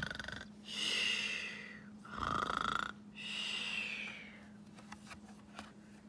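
A person imitating a bear's snoring: two rounds of a rasping snore on the in-breath, each followed by a long hissing out-breath. A few faint clicks come near the end as a board-book page is turned.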